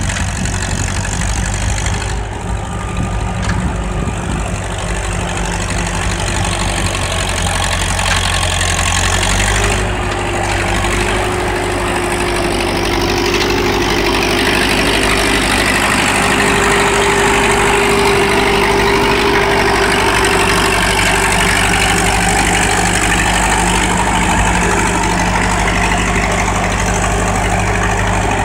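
Caterpillar 212 motor grader's engine running steadily while the grader works soil with its blade, growing somewhat louder about halfway through.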